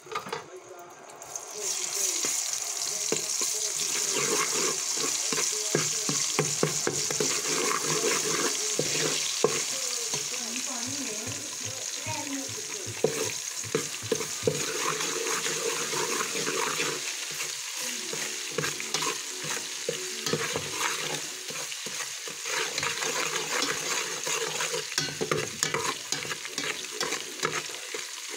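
Ginger-garlic paste frying in hot oil in a metal pot, with steady sizzling that swells about a second and a half in. A metal spoon stirs and scrapes against the pot, making frequent clicks through the sizzle.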